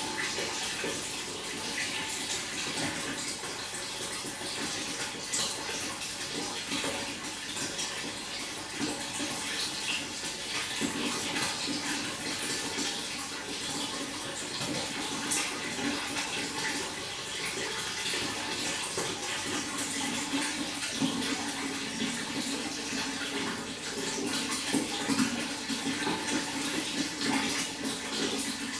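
Running water flowing and splashing steadily, a continuous bright rushing without pauses.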